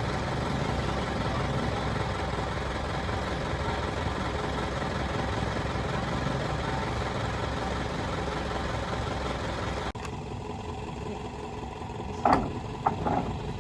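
A steady mechanical running noise like an idling engine, then, after a cut, a few short knocks near the end.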